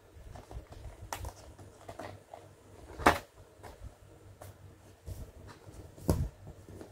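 Plastic toy-packaging bag being handled and flexed by hand, giving scattered crinkles and sharp crackles. The loudest crackle comes about three seconds in, and another strong one about six seconds in.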